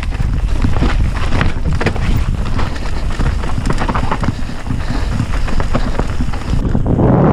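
Wind buffeting the microphone of a mountain bike's action camera, over the crunch of tyres on a dirt and gravel trail and many quick rattles and knocks from the bike jolting over rough ground. Near the end the higher hiss drops away and a deeper wind rumble takes over.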